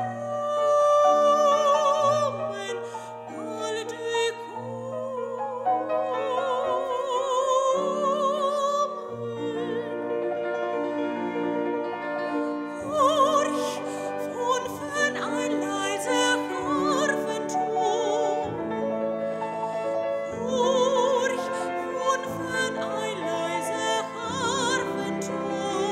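Soprano singing a classical art song with a wide vibrato, accompanied by a Steinway grand piano.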